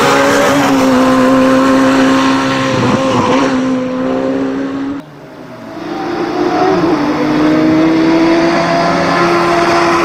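A Radical SR3 sports-racing car's high-revving engine holds a steady pitch under load as it climbs. About halfway through it cuts off suddenly. Then another race car's engine comes in on the approach, its pitch rising slowly as it accelerates.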